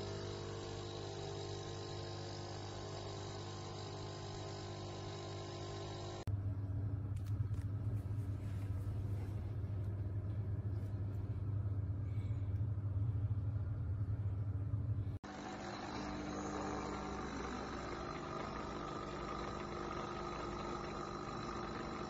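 HiBREW capsule coffee machine's pump buzzing steadily while it brews. Cuts about six seconds in and about fifteen seconds in change the sound: the middle stretch is a louder low buzz, and the last is a softer hum.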